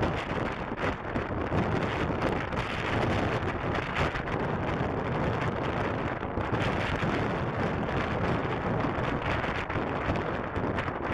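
Wind buffeting the microphone over the steady jet-engine noise of an Icelandair Boeing 757 landing.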